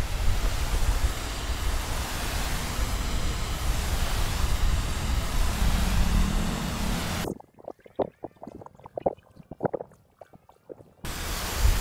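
Garden hose spray nozzle hissing as it waters a bed of bare soil, with wind buffeting the microphone. About seven seconds in the sound cuts off suddenly to near quiet with a few faint ticks, and the hiss and wind come back near the end.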